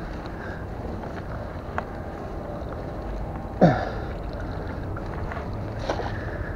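Steady low outdoor rumble, with a few faint clicks and one short, sharp squeak that slides steeply down in pitch a little past the middle.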